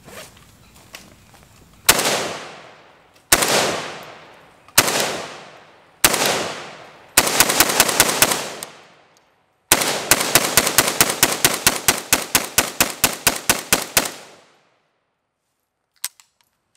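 DPMS Panther Arms Anvil AK rifle firing: four single shots about a second and a half apart, each with a long echoing tail, then a quick string of about seven shots, a short pause, and a long rapid string of some two dozen shots that stops about fourteen seconds in. A couple of faint clicks follow near the end.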